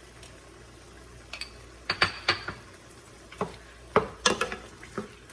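A spoon knocking and scraping against a cooking pot and bowl in a run of sharp clinks that starts about a second and a half in, as spice masala is scooped into chicken cooking in the pan.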